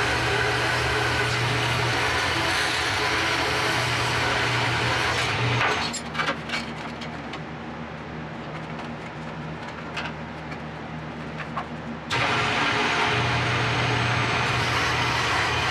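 An electric power tool cutting steel runs steadily with a low hum. It stops about six seconds in, leaving a few clicks and knocks, then starts up again abruptly about six seconds later.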